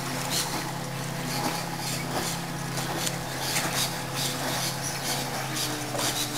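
A steady low engine drone runs throughout, shifting pitch slightly about five seconds in. Over it come small irregular splashes of water as a small aluminium dinghy is rocked by hand.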